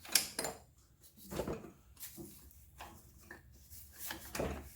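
Wrench and steel fittings clinking and knocking as a 9/16 bolt is worked loose with added leverage: a few scattered metal clinks, louder just after the start, about a second and a half in, and near the end.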